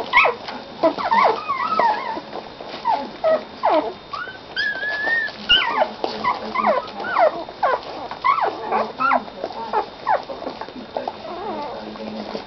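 Week-old puppies squeaking and whining, many short high cries that slide up and down, a few each second, with one longer wavering cry about five seconds in.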